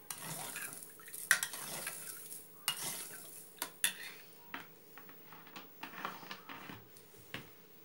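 Metal spoon stirring coarse salt into water in a stainless steel pot, scraping and clinking against the pot, to dissolve the salt for a pickling brine. The sharpest clinks come in the first four seconds, then softer taps.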